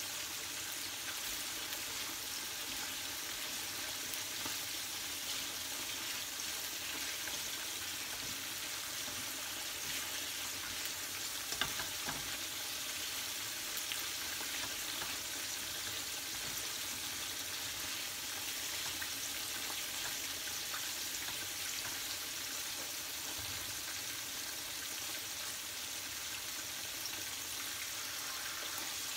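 Hot oil sizzling steadily as boneless milkfish (bangus) deep-fries and sliced onions fry in a second pan. A single sharp knock about twelve seconds in.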